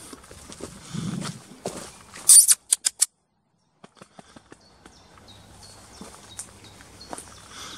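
Footsteps on a woodland path of dry leaf litter and twigs. About two seconds in there is a loud crackle followed by three sharp snaps, and then the sound cuts out completely for under a second before faint steps resume.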